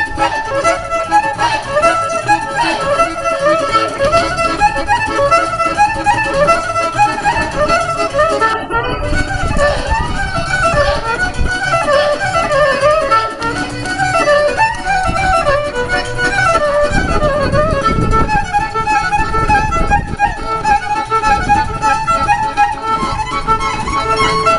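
Fiddle playing a quick, winding traditional Romanian Căluș dance tune over its accompaniment, with dull low thumps in places.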